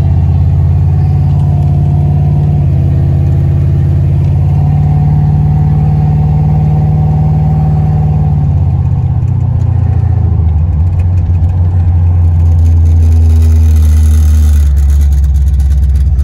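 1981 Chevrolet Monte Carlo's small-block Chevy V8 running as the car drives along, heard from inside the cabin. The engine note is steady at first and grows louder about twelve seconds in.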